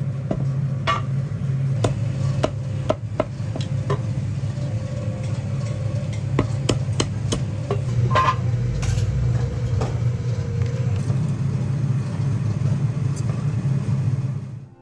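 Steady low hum with scattered sharp knocks and clicks of kitchen work, densest in the first ten seconds.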